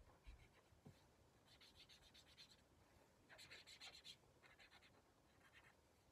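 Faint scratching of a marker tip on sketchbook paper as a patch is colored in, in several short bursts of quick back-and-forth strokes.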